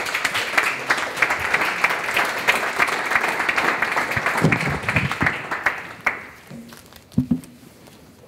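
Audience applauding, then dying away about six seconds in.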